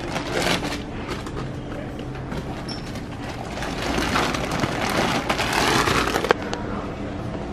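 Large bags of dry dog food rustling and scraping as they are shifted on a store shelf, loudest about four to six seconds in, with a sharp knock near the end. A steady low hum runs underneath.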